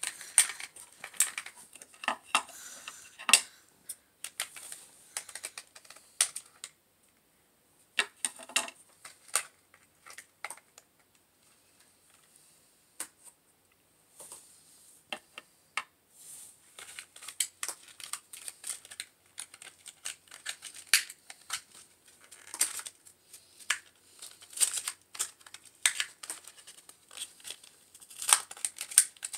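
Small plastic toy figure and its packaging being handled: crinkling wrapper and sharp clicks and taps of hard plastic parts, irregular, with a quieter stretch about halfway through.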